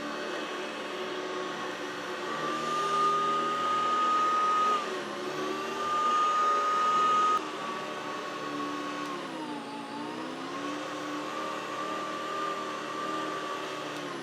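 Hoover Decade 80 upright vacuum cleaner running with a steady motor whine. It gets louder for two stretches of a couple of seconds each, and its pitch sags briefly and recovers about ten seconds in.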